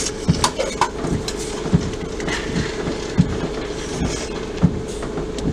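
Inside a car with the engine idling: a steady hum, with a low thump about every one and a half seconds and a few small clicks.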